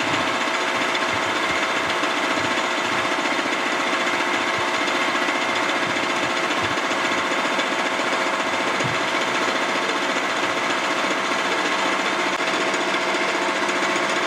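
Vertical milling machine taking a heavy cut along the edge of steel angle iron with a two-flute high-speed steel end mill at a slow feed. The cut makes a steady machining noise with a fast, even rhythm. The thin angle is deflecting under the heavy bite.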